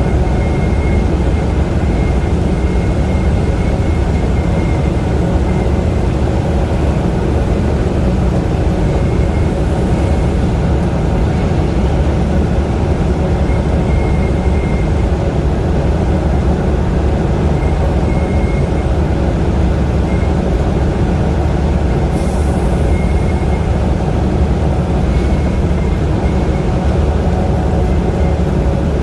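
Steady engine and road noise of a vehicle driving on the highway, with a brief hiss about 22 seconds in.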